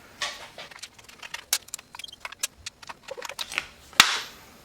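Scattered light clicks and metallic rattles of tools and small parts being handled while a bolted cover is taken off. There is a short rushing burst near the start, and a sharp click about four seconds in is followed by another brief burst.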